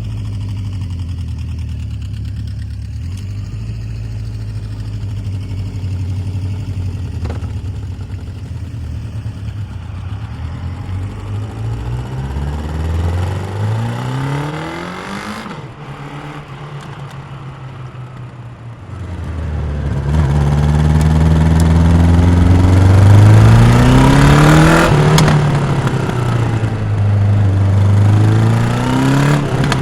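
Honda CB1100 RS's air- and oil-cooled 1140 cc inline-four on its stock exhaust, under way: it runs steadily at first, climbs in revs, backs off to a quieter note for a few seconds, then pulls hard and loud with rising revs, the pitch dropping sharply at a gear change about two-thirds in and again at the end.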